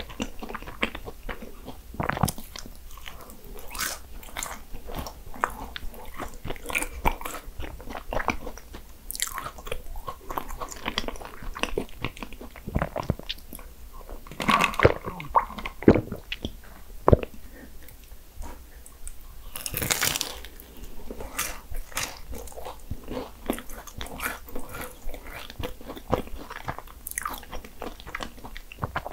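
Close-up eating of Portuguese egg tarts: repeated bites into the flaky puff-pastry shell and chewing, a steady run of small crisp crunches and crackles. A few louder crunches come about halfway through.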